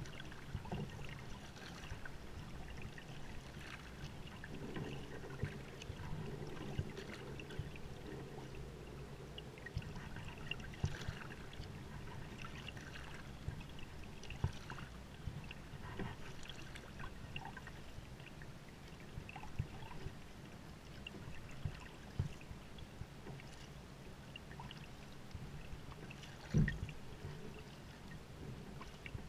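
Sea kayak paddle strokes on calm water: the blades dipping and dripping and water trickling along the hull, with scattered light splashes and one louder knock near the end.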